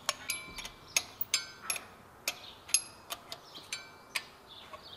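Irregular metallic clicks and clinks, several with a brief ringing tone: small stainless steel guide holders being handled and fitted to a steel-bolted drill-guide plate on an engine's cylinder head.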